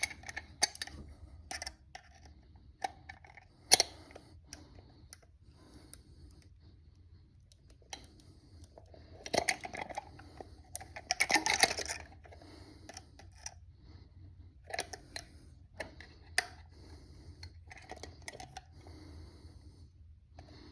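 Smith & Wesson handcuffs clicking and rattling against a vise as they are worked for an escape: scattered sharp metal clicks, with two longer bouts of rattling about nine and eleven seconds in.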